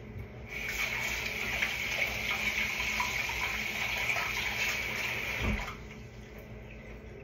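Kitchen sink faucet running in a steady stream for about five seconds, then shut off.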